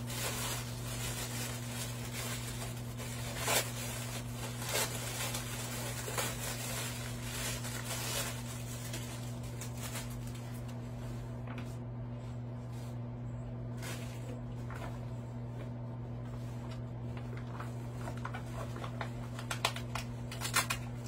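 Rustling and crinkling of wrapping and fabric as a fabric wall organizer is unpacked by hand, with scattered sharp crackles, over a steady low electrical hum.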